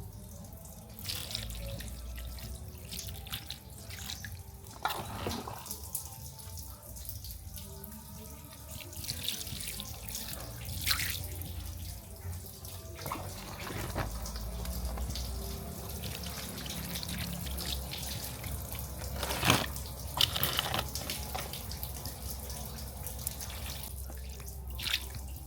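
Water running and splashing, with scattered small clicks and knocks of handling.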